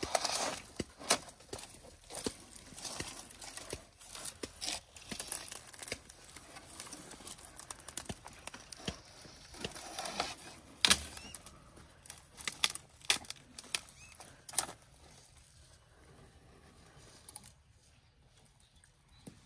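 African elephant browsing on a dry thorny bush: twigs snapping and dry branches crackling and rustling in irregular clicks, with a few sharper snaps, thinning out near the end.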